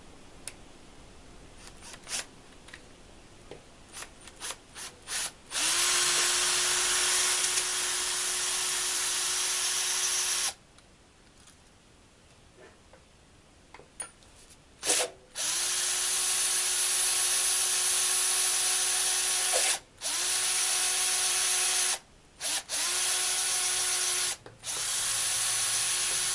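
Electric drill with a small (7/64-inch) bit drilling holes into an outboard lower-unit propeller-shaft seal, so that screws can be driven in to pull the seal out. A few clicks come first, then the drill runs in about five bursts of a few seconds each. Each burst spins up quickly to a steady pitch.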